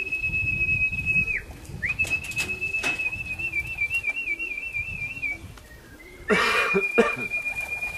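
Long, high whistle notes held steady, three in a row, the middle one wavering toward its end, used to call racing pigeons down to the loft. Low pigeon cooing runs underneath, with a burst of wing flapping about six seconds in.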